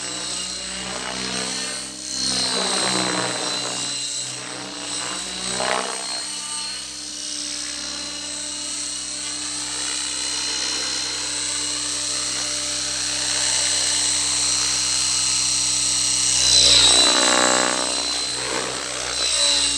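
Fusion 50 radio-controlled model helicopter in aerobatic flight: a steady high whine over the engine and rotor note, which swells and fades as it swoops past several times. The loudest pass comes near the end.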